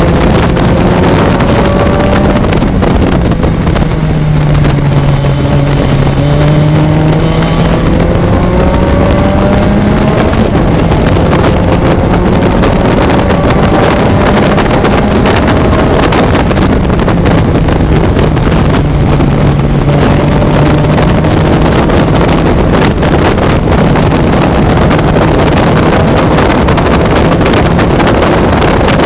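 Onboard sound of a VITA-01 race car at racing speed: its Toyota 1.5-litre four-cylinder engine running hard under heavy wind rush on the microphone. The revs dip a few seconds in and climb again.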